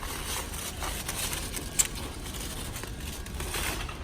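Grocery store background noise, a steady hum with scattered clicks, rattles and rustles, one sharp click about two seconds in.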